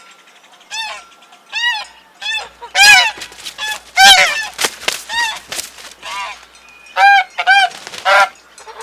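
Goose honking repeatedly: a rapid series of short, nasal honks, with several crowding together in the middle.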